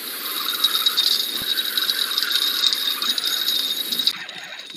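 Spinning reel's drag buzzing in a dense run of rapid clicks as a hooked fish pulls line off against the bent rod, stopping abruptly about four seconds in.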